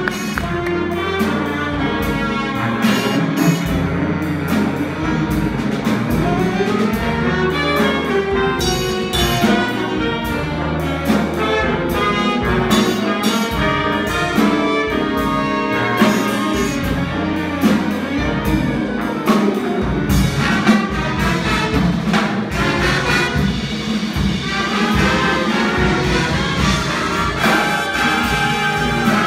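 High school jazz band playing, with trumpets and trombones to the fore over a bass line and drum hits.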